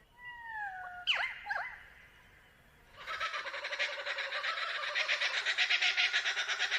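A few whistled calls falling in pitch. Then, about three seconds in, a flock of birds starts calling together in a rapid, dense clamour that grows louder.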